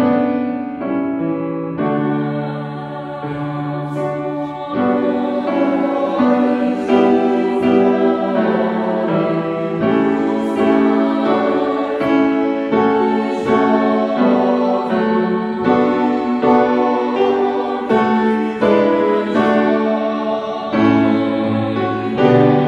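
Small mixed choir singing a sacred piece in sustained chords, accompanied by a grand piano.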